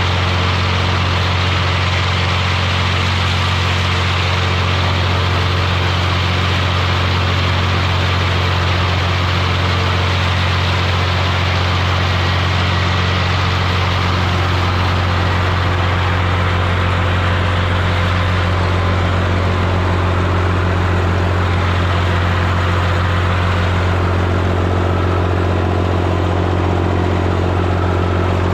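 Tractor engine running at a steady speed while driving a disc mower, with a constant low hum and no change in pitch.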